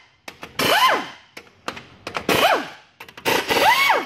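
Cordless power driver spinning in three short bursts, each with a motor whine that rises and falls away, as it backs out 13 mm rocker arm bolts on a pushrod engine's valvetrain. Sharp clicks fall between the bursts.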